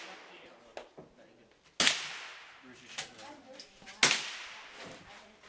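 Rifle shots on a shooting range: two loud, sharp cracks about two seconds apart, with fainter shots from other lanes between them. Each crack trails off with a short echo.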